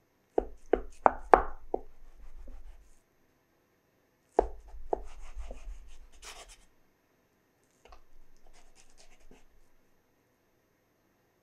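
Steel bench scraper chopping down through soft dough onto a wooden cutting board: a quick run of about five knocks, then two more about four seconds in. Softer scraping and a couple of faint taps follow.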